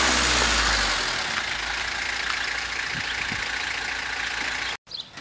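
White panel van pulling up at the kerb, its engine running under a steady hiss of road noise, easing off after the first second or so. The sound cuts off abruptly near the end.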